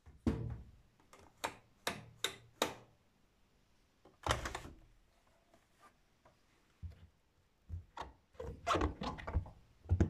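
Door of a Luxor WM 1042 front-loading washing machine being opened and handled after the spin: a run of short clicks and knocks from the door, latch and rubber door seal, thickening into a dense cluster near the end.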